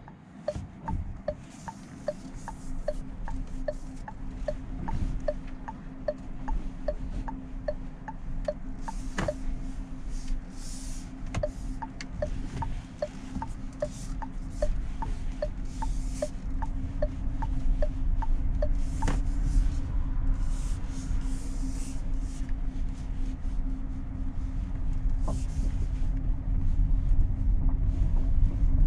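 Cabin noise of a Renault Rafale E-Tech full hybrid driving slowly over a rough unpaved track: a low rumble of tyres and suspension that grows louder, with occasional knocks. For the first half a turn indicator ticks about one and a half times a second, then stops.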